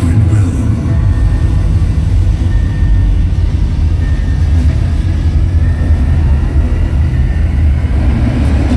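Deep, steady bass rumble of electronic intro music through a large arena sound system, with faint thin high tones above it.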